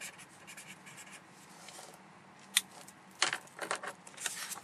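Felt-tip marker scratching across paper in quick short strokes as words are written, then a single sharp click and rustling as the paper sheet is handled.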